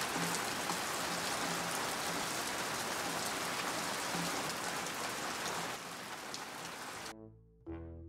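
Heavy rain falling steadily as an even hiss, with faint music underneath. The rain cuts off abruptly about seven seconds in, and music starts just before the end.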